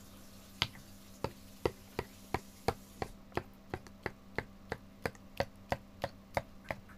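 Thick slime being stirred and lifted with a plastic spoon in a glass bowl, giving sharp sticky clicks at an even pace of about three a second, starting just over half a second in. The slime is nearly set and has mostly stopped sticking to the bowl.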